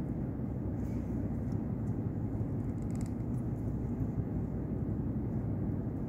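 Steady low background rumble, with a few faint small clicks as Cat6 wire cores are pressed by hand into the slots of an RJ45 keystone jack.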